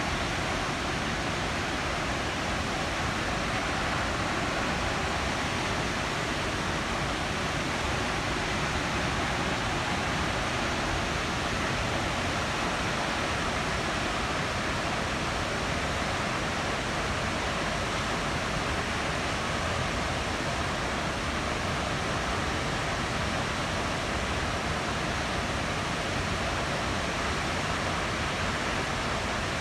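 Steady, unbroken rush of water pouring from a dam's outlet.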